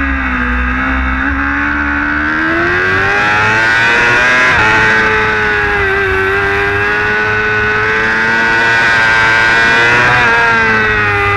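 Race motorcycle engine at high revs, heard onboard, pulling hard out of a corner under wide-open throttle: the pitch rises steadily, breaks briefly about four and a half seconds in, climbs again, then drops near the end. Wind rush over the bike grows with speed.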